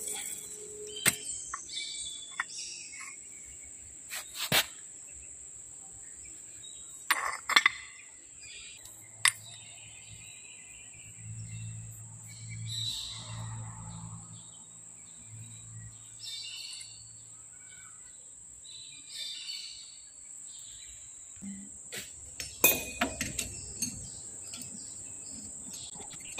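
Scattered knocks and clinks of steel parts being handled, with clusters of several quick knocks a few seconds in and again near the end, over a steady high-pitched whine.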